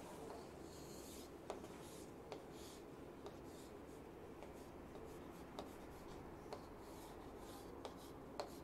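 Chalk drawing on a chalkboard: faint short scratching strokes, with a few light ticks as the chalk meets the board.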